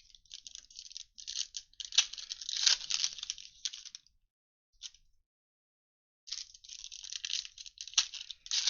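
Crinkling and tearing of a trading-card pack's wrapper as it is opened, in two spells of crisp crackling with a pause of about two seconds between them.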